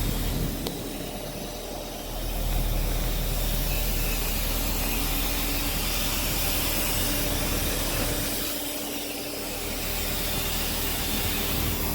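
Car on a wet road: steady tyre hiss and spray over a low engine hum, easing off briefly twice.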